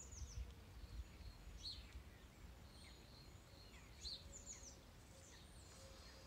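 Faint birdsong: a small songbird's short, high chirps and quick trills, recurring every second or so, over a low rumble.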